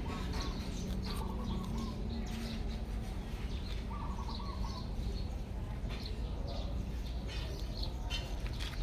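Bird calls: short chirps, and twice a quick run of rapid notes, over a steady low background hum.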